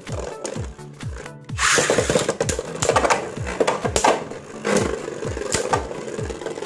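Two Beyblade Burst spinning tops whirring and scraping across a plastic stadium floor, with several sharp clacks as they collide. Background music with a steady electronic bass beat runs underneath.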